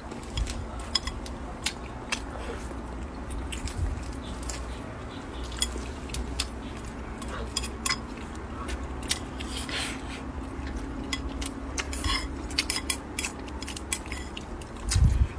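A person eating: utensils clicking against a bowl with biting and chewing in between, as scattered sharp clicks. There is a louder low thump near the end.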